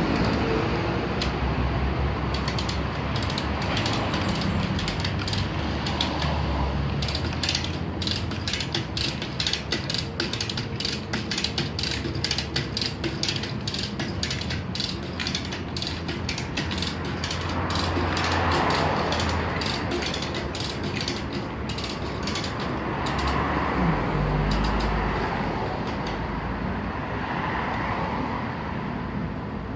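Hand-cranked winch hoist being cranked, its ratchet pawl clicking several times a second, with the clicks thinning out over the second half.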